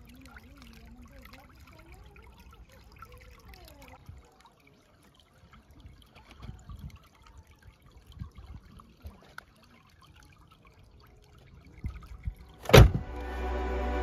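Faint handling of cardboard watch boxes over a quiet trickle of stream water, with a faint wavering tone in the first few seconds. A single sharp knock comes near the end, and background music then starts.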